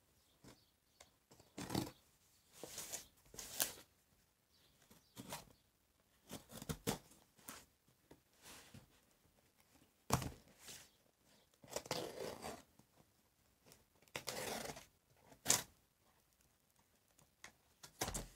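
Folding pocketknife cutting through packing tape on a cardboard box, in irregular short scratchy strokes, with a few longer ripping sounds as the tape and cardboard are torn open.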